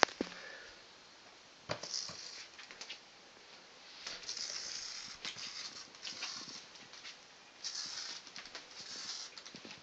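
A bat fluttering its wings against a bedsheet as it crawls on the bed: five short, hissing rustles, each under a second long, with a few faint ticks between them.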